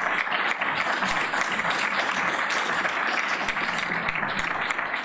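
Audience applauding: many hands clapping in a steady, dense clatter.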